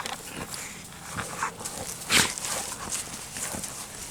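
A dog rolling around in grass: rustling and scuffling, with a few short, sharp noisy bursts, the strongest about two seconds in.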